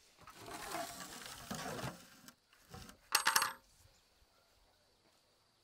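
Heavy metal lid of an in-ground tandoor scraping across stone paving, then set down on the pit's rim about three seconds in with a short metallic clank that rings briefly.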